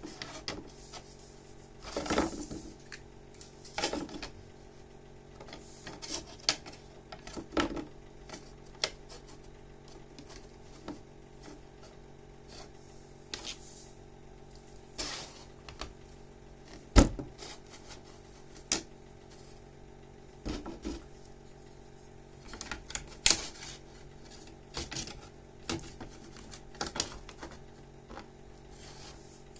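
Plastic wrestling action figures being handled and posed: scattered irregular clicks, taps and knocks of plastic, with one sharper knock about halfway through. A steady low hum runs underneath.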